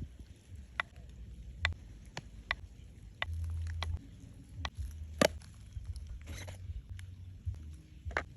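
Irregular light clicks and taps, about a dozen scattered over the stretch, the sharpest about five seconds in, over a low uneven rumble.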